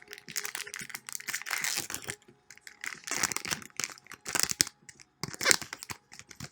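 Pokémon booster pack's foil wrapper being torn open and crinkled by hand, in irregular rustling bursts.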